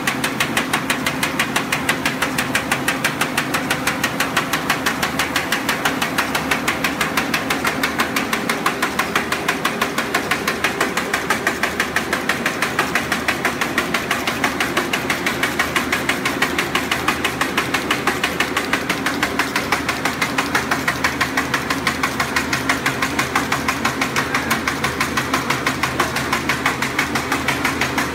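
V-bottom paper bag making machine running at production speed, a fast, even mechanical clatter repeating several times a second as it turns out bags.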